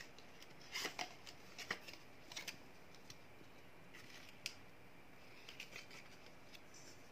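Faint, scattered rustles and clicks of a small folded cardboard card holder and a paper card being handled and opened by hand.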